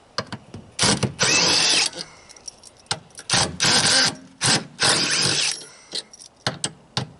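Power drill-driver running in short bursts, four runs of a second or less each with a rising and falling whine, backing out the screws that hold a washing machine's motor. Small clicks between the runs.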